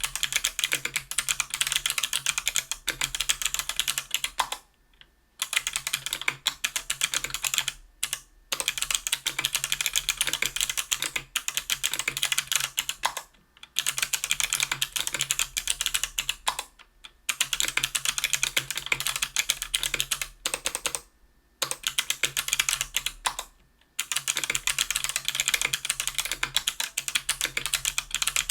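Typing on a KBDfans Tofu 60% aluminium keyboard with an aluminium plate and GMK keycaps, fitted with stock Kailh BOX Crystal Jade clicky switches (75 g). Rapid keystrokes come in runs of a few seconds, broken by about six brief pauses.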